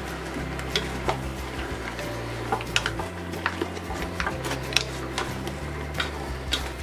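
Wooden spoon stirring chunks of beef feet in a stainless steel pressure cooker, with irregular knocks and clicks as the spoon and pieces strike the pot's metal side.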